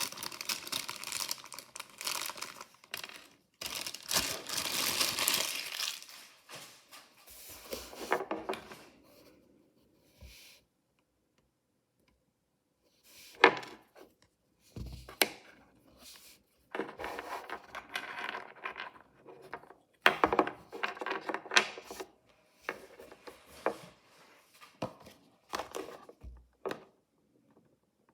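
Packaging being unwrapped by hand to open mystery miniature toys: bursts of crinkling and tearing, a silent pause about ten seconds in, then sharp clicks and taps among more rustling as the pieces are handled.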